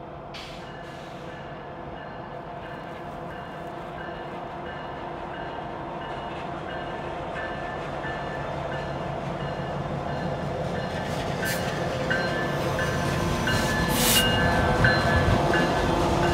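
Canadian Pacific diesel freight locomotives approaching, their engines growing steadily louder as they draw near, with a couple of sharp clicks near the end.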